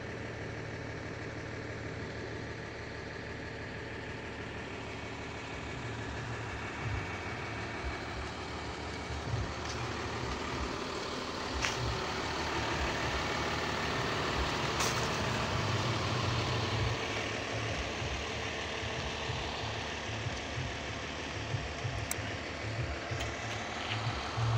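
Heavy diesel tipper truck engine idling steadily, a low rumble with a steady hum, growing somewhat louder from about six seconds in, with a few sharp clicks.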